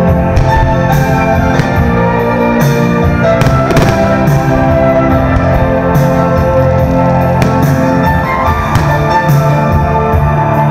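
Music with long held notes and a drum beat, steady and loud.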